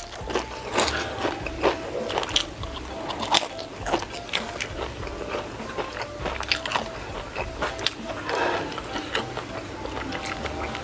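Close-miked crunching and chewing of a crispy fried wonton, an irregular run of sharp crunches through each mouthful.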